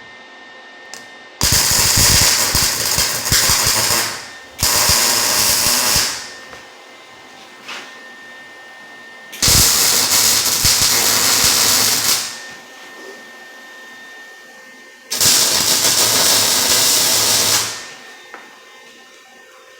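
Lincoln MIG welder arc crackling and buzzing in four separate welds of about two to three seconds each, joining steel tube held in place with magnets.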